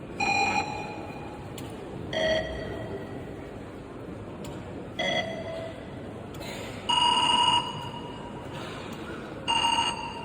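A series of short ringing tones, each at a slightly different pitch, sounding about every two to three seconds over a steady background hiss; the one about seven seconds in is longer than the others.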